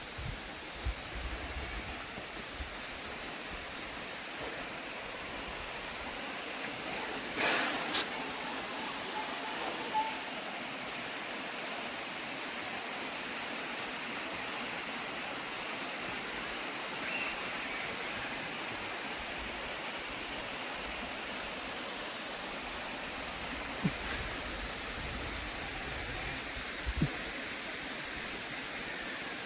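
Steady rushing of a waterfall, with a few brief knocks about a quarter of the way in and again near the end.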